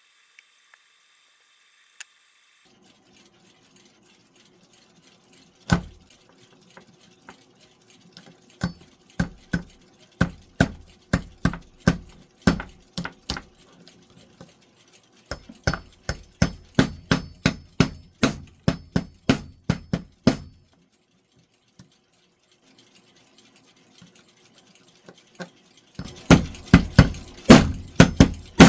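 Trenkle wind-up alarm clock's mechanism clicking in runs of sharp, regular clicks, about two to three a second, with short pauses between the runs. The clicking grows louder and denser near the end.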